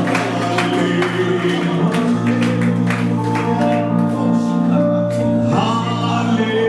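Background worship music: held chords and a sung melody over a steady strummed or picked accompaniment.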